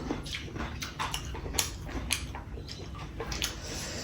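Wet eating sounds up close: chewing and lip smacks, with a string of irregular short sticky clicks.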